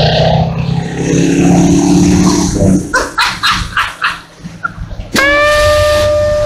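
A pitched sound with a slow glide, then a quick run of about six short, evenly spaced sharp sounds. About five seconds in, a held electric guitar note rings out, opening rock intro music.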